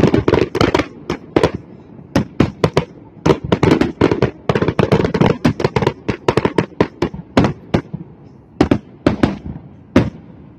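Aerial fireworks shells bursting in rapid volleys of sharp bangs, thinning to a few separate bangs near the end.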